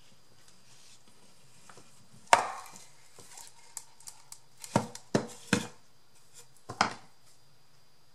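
A small wooden purse box being handled and set down on a table: one sharp wooden knock about two seconds in, then a run of four or five knocks and clatters a few seconds later.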